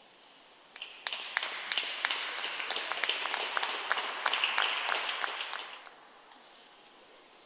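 Applause from a small crowd, individual claps standing out, starting about a second in and dying away after about five seconds.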